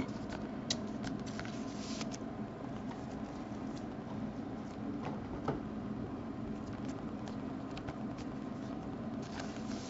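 Faint rustling and a few light clicks of trading cards and a clear plastic card sleeve being handled, over a steady low room hum.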